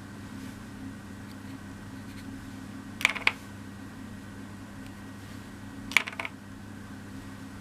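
Two short clatters of small, hard, thin laser-cut MDF pieces being set down or knocked on a tabletop, about three seconds apart, each a quick rattle of several clicks, over a steady low hum.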